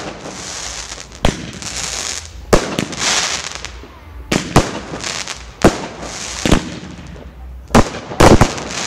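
Fireworks display: aerial shells bursting in a string of sharp bangs about a second apart, with a rushing hiss between them, and a quick cluster of the loudest bangs near the end.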